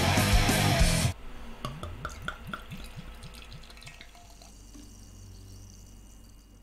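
A loud rush of noise for about a second that cuts off abruptly, then a quick run of liquid drips that thins out and fades.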